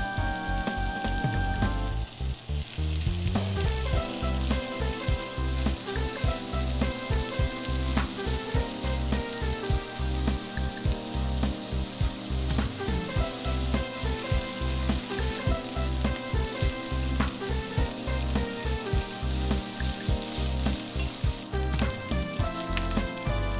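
Thin slices of pork belly sizzling in hot oil in a frying pan as they are stir-fried, the sizzle building about two seconds in. Background music with a steady bass beat plays throughout.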